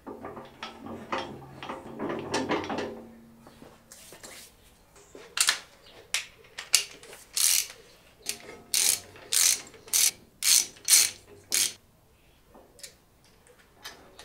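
Ratchet socket wrench on an extension clicking in a run of about a dozen strokes, roughly two a second, as the bolts holding the saw's motor mounting plate are undone. Some handling noise comes first, in the opening few seconds.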